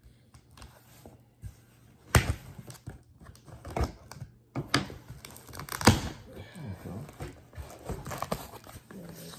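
A cardboard shipping box being torn open by hand: several sharp rips of packing tape and cardboard flaps, the loudest about six seconds in, with lighter rustling and scraping between.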